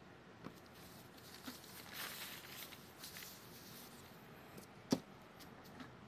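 Faint rustling and sliding of a sheet of calligraphy paper being moved by hand, strongest about two seconds in, with a few soft taps and one sharp click about five seconds in.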